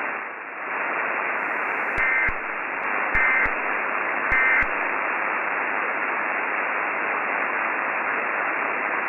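Steady radio static hiss. About two seconds in come three short warbling data bursts, about a second apart: the Emergency Alert System end-of-message (EOM) SAME tones that close a broadcast alert.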